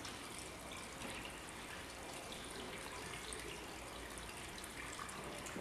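Faint steady hiss with a low hum underneath: room tone.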